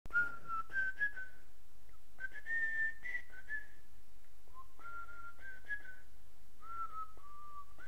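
A person whistling a slow melody in several short phrases, the notes sliding into one another, over a low steady hum.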